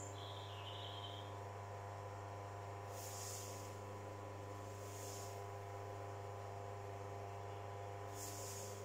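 Steady electric hum of a potter's wheel motor, with a few short high bird chirps over it.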